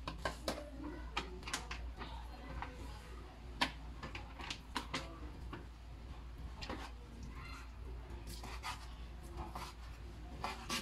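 Kitchen handling sounds: a plastic bag crinkling and scattered light knocks and clicks as pieces of roasted chicken are pulled out and laid on a wooden cutting board, then a knife cutting on the board near the end, over a low steady hum.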